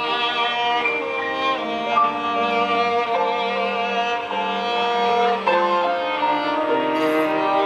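Violin, cello and grand piano playing together, the strings holding long bowed notes over the piano, with the notes changing about every second.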